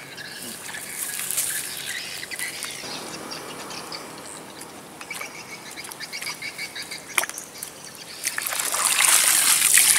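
Shallow water trickling and sloshing as a cast net is worked, with loud splashing building from about eight seconds in. Faint bird chirps sound over it.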